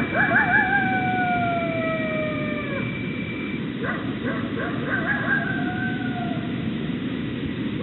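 Recorded coyote calls: long wavering howls that slide down in pitch. A run of short yips comes about four seconds in, then another falling howl, all over a steady hiss.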